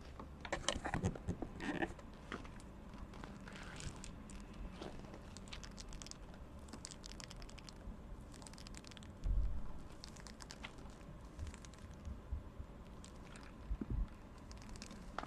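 Long acrylic nails clicking, tapping and scratching in irregular short strokes, busiest in the first two seconds, with a dull low thump about nine seconds in.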